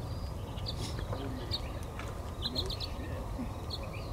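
Small birds chirping: short high notes every second or so, some in quick little clusters, over a steady low outdoor rumble.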